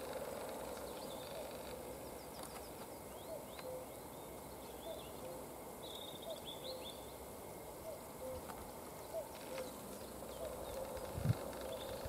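Spring woodland birds: faint high chirps and short trills from small songbirds, over a run of short low hoot-like notes repeated roughly every half second, with a steady low hum beneath. A single dull thump near the end.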